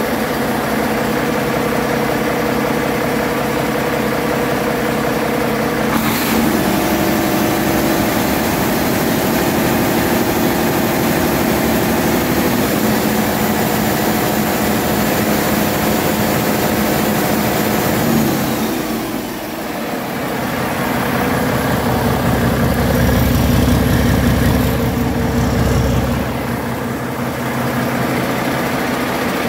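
Mack MP8 inline-six diesel truck engine running on a test stand. Its speed steps up about six seconds in and slides back down near twenty seconds, then it runs louder and deeper for a few seconds before settling again. The seller says it runs excellent.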